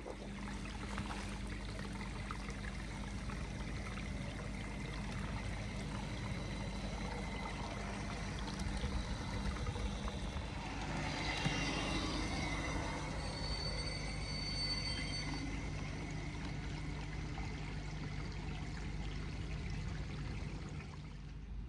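LGB 2095 'Bobo' G-scale model locomotive running along garden railway track, its motor and wheels humming, over a steady wet hiss of rain. About halfway through it passes closest, louder and with a high whine and squeal from the wheels and motor, then fades.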